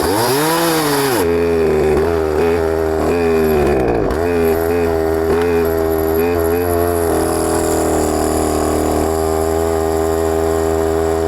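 Gasoline chainsaw running at speed: revving up and down at first, then holding a steady high pitch, with a brief dip about four seconds in.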